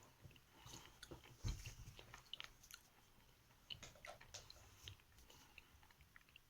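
A person chewing a hard lump of Sever edible chalk, with faint, irregular crunches; the loudest comes about one and a half seconds in.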